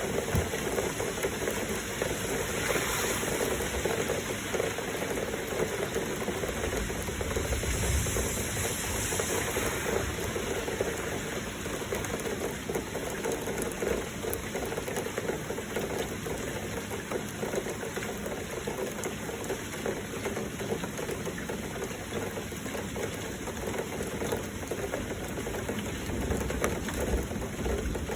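Heavy rain with flowing water: a steady, dense patter and rush that holds without a break.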